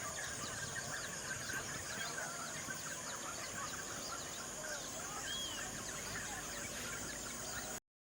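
Dense outdoor chorus of many short bird-like chirps and calls over a steady high-pitched hum, cutting off abruptly near the end.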